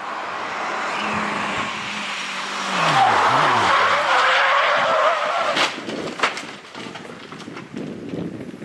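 Renault 5 rally car's engine running, its revs dropping in steps as it brakes into a bend, then tyres squealing loudly for about three seconds as it slides. Two sharp crashes about half a second apart as it hits the roadside, followed by scattered clatter of debris.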